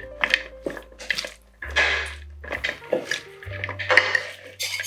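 Background music with a steady low bass line, over irregular clicks and clatters of green beans being mixed through a salad in a bowl.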